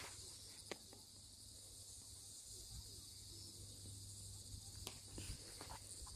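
Faint, steady high-pitched chorus of insects, with a few sharp clicks, the strongest right at the start.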